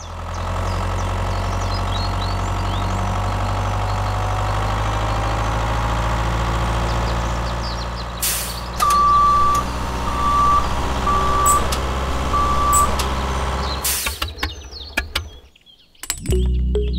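Heavy vehicle engine sound effect running steadily, with four reverse-warning beeps in the middle and two short hisses like air brakes at about 9 and 14 seconds. Music starts shortly before the end.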